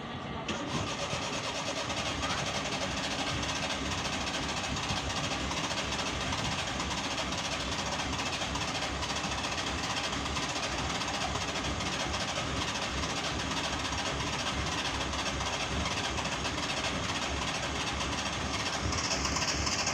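Suzuki Mehran's small carbureted engine running steadily, a rapid even pulsing with hiss over it.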